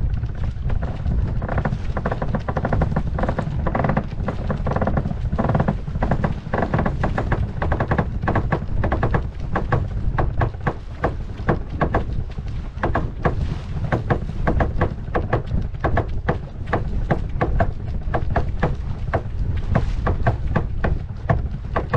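A sailing yacht's winch being cranked by hand: a steady run of ratchet clicks, a few a second, as a sheet is trimmed in. Wind buffets the microphone underneath.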